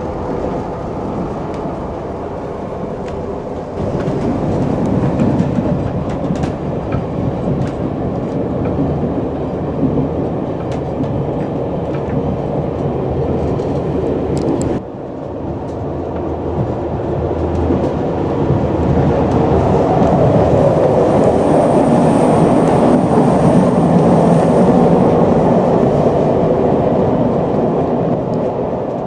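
Railway passenger carriage running along the track, heard from inside: a steady rumble of wheels on rails with scattered clicks. About halfway through it drops suddenly, then builds to its loudest, with a faint high whine near the end.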